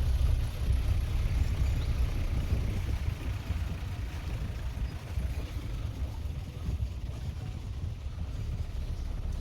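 Open Maruti Gypsy safari jeep driving along a dirt forest track: a steady low engine and road rumble.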